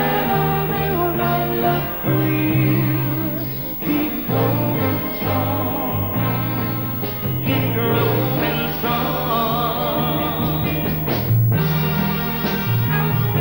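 Soul vocal group singing a slow ballad with band accompaniment: smooth held vocal lines with vibrato over a steady bass line.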